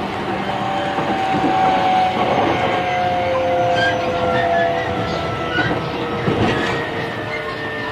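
JR East E531 series electric train heard from inside a car: rumbling running noise with the traction motors' inverter whine sliding steadily down in pitch as the train slows, and a few faint short squeaks in the second half.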